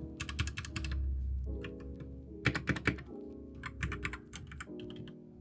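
Typing on a Royal Kludge RK71 mechanical keyboard: several short bursts of rapid keystroke clicks, over background music.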